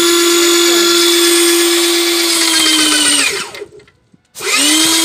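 Electric airless paint sprayer's pump motor running with a steady high hum, winding down in pitch and stopping about three seconds in, then starting up again with a rising pitch about a second later.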